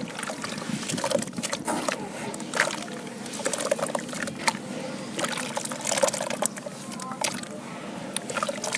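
Sand-cement cylinder crumbling in water: trickling with a steady run of small crackles and clicks as it breaks apart.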